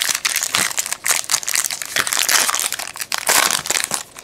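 Foil trading-card pack wrapper crinkling as it is torn open and pulled apart by hand: a dense, irregular run of crackly rustles.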